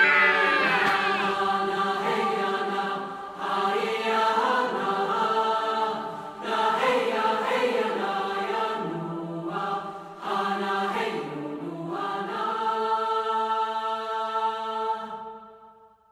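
Choral-sounding music: sustained sung chords, each held for a second or two before moving to the next, fading out near the end.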